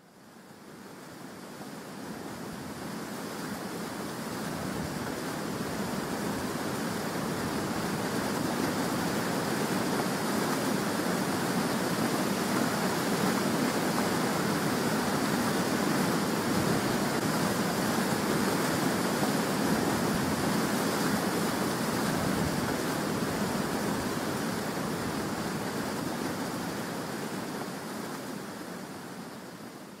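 Steady rushing of falling water from a tall waterfall, an even roar without distinct splashes, fading in over the first few seconds and fading out near the end.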